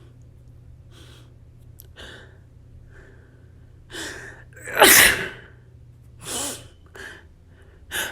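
A person sneezing from dust: a gasping inhale about four seconds in, then one loud sneeze, with quick breaths before and after and another gasping intake of breath near the end.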